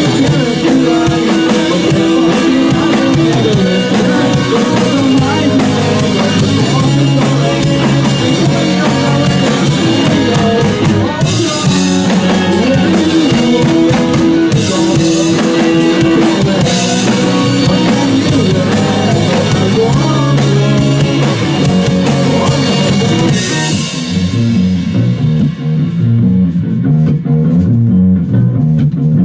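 Instrumental rock passage with electric guitar, bass and drum kit and no singing. Near the end the drums and cymbals drop out, leaving the guitars.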